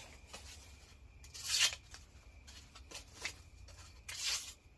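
Two short, papery swishing strokes, about a second and a half in and again near the end, from a knife ground out of sawmill-blade steel being tried on something. A faint low hum runs underneath.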